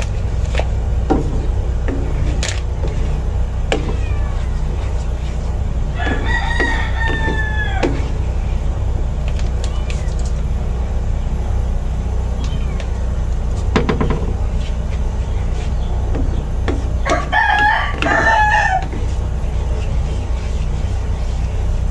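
A rooster crows twice, each crow about two seconds long, the first about six seconds in and the second near the end. Underneath are a steady low hum and the light scrape and tap of a wooden spatula stirring in a pan.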